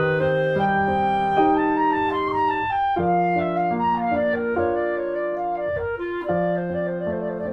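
Instrumental background music: a melody of held notes moving from note to note over a steady accompaniment.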